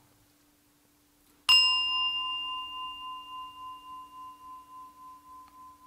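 A metal meditation bell struck once, about a second and a half in. It rings on with a clear tone that wavers and fades slowly, still sounding at the end.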